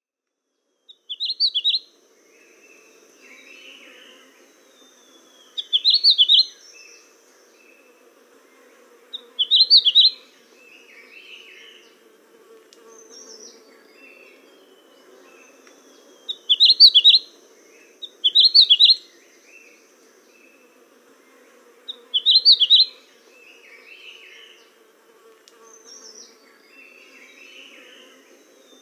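Birdsong: one bird repeats a short, rapid, high phrase about every three to six seconds, with softer chirps from other birds in between. A faint low drone runs underneath.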